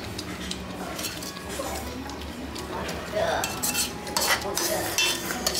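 A metal ladle scraping and clinking against a shallow metal stew pot and a ceramic bowl as stew is served. The clatter gets busier and louder from about three seconds in.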